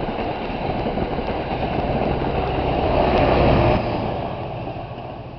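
NJ Transit passenger train passing on the rails, a steady running noise that builds, drops off sharply a little under four seconds in and then fades as the train clears.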